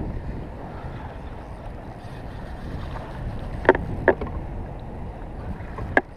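Choppy water lapping against a kayak's hull, a steady rushing noise, with three sharp knocks: two close together past halfway and one near the end.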